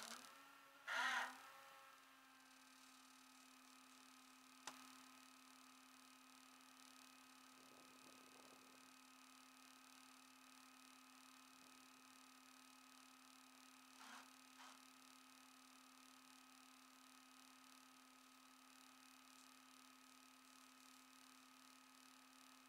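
Near silence with a faint, steady hum on one pitch, broken by a short louder knock about a second in and a single click a few seconds later.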